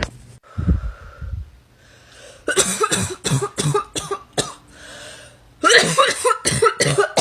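A girl's harsh, barking cough in rapid fits, many coughs in one breath: a run of about seven quick coughs, a short pause with a breath drawn in, then a faster run of about ten.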